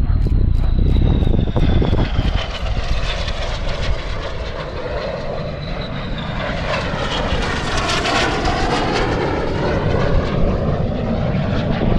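Two Red Arrows BAE Hawk T1 jets with Adour turbofans passing low and fast as they cross. A high whine falls in pitch over the first six seconds, then the jet noise swells to its loudest about eight seconds in with sweeping, wavering tones, over a steady low rumble.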